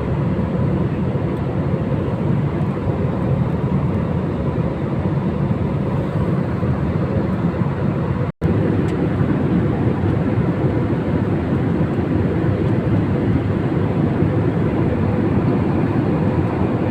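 Airliner cabin noise in flight: a steady, deep rush of jet engine and airflow noise. It cuts out for a split second about eight seconds in.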